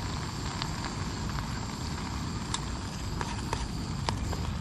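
Camping gas stove burner running under a pan of frying bacon, onion and cabbage: a steady hiss with a low rumble and scattered crackles and pops. The burner is faltering, which the cook takes for the gas canister running out.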